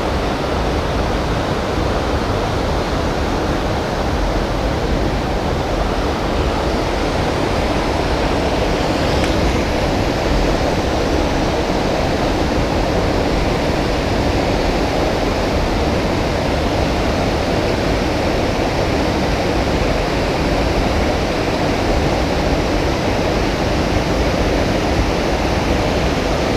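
Creek water rushing steadily over rocks, an even, unbroken wash of noise.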